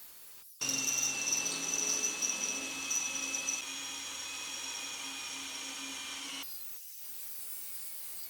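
A power tool running with a steady high whine, starting suddenly, dropping slightly in pitch about halfway through, then cutting off suddenly.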